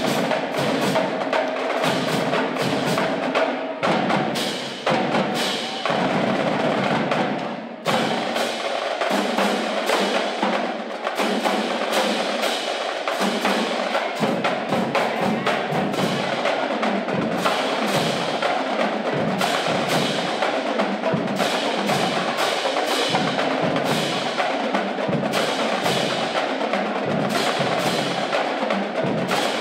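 A marching drumline playing: snare drums, tenor drums, bass drums and cymbals in fast, dense rhythms, with a brief break about eight seconds in.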